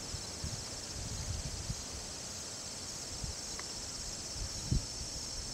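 Steady, high-pitched chirring of an insect chorus, with a fine pulsing texture throughout. Under it come irregular soft low thumps, the loudest a double thump about three-quarters of the way through.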